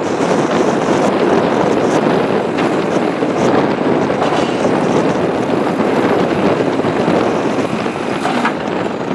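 JCB 3CX backhoe loader's diesel engine running steadily.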